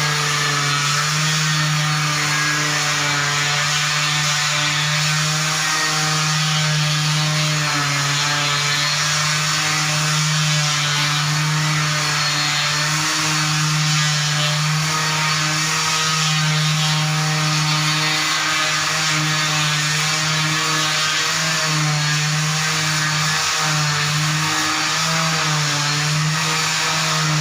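Electric floor sanding machine running steadily on a wooden parquet floor, a continuous motor hum under the hiss of abrasive on wood.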